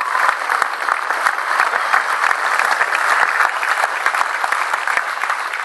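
Large crowd applauding, a dense patter of many hands clapping that eases off near the end.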